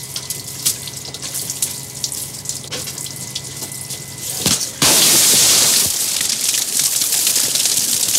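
Seawater dripping and splashing from a full trawl cod-end hoisted over a dragger's deck, over a low steady engine hum. About five seconds in, a sudden loud rush of pouring water and fish begins as the catch spills into the deck pen.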